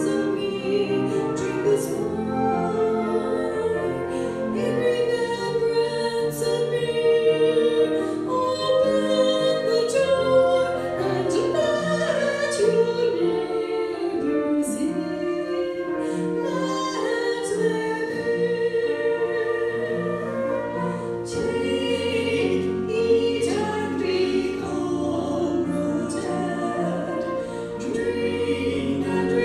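Three women singing a hymn together with piano accompaniment.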